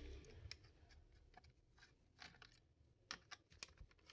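Near silence with a few faint, short clicks, mostly in the second half: a screwdriver working the screws out of a laptop's base panel.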